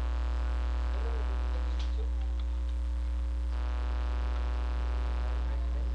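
Steady electrical mains hum with a buzz of many even overtones, unchanging throughout.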